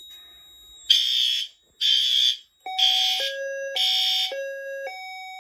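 Fire alarm horns sounding in four short, evenly spaced blasts about once a second, joined about halfway through by a high-low two-tone alarm tone alternating about twice a second.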